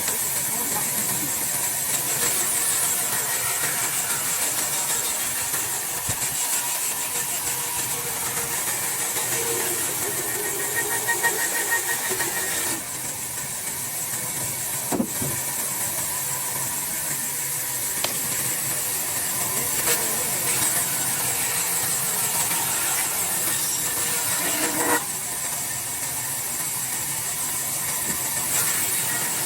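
A power tool working wood, giving a steady high-pitched hiss over a faint motor hum, with a sharp knock about halfway through and another near the end.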